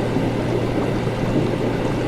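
Laboratory ambience: liquid bubbling and gurgling over a steady low electrical hum.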